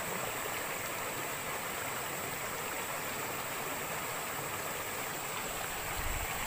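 Water rushing steadily over river rapids, with a thin steady high tone above it.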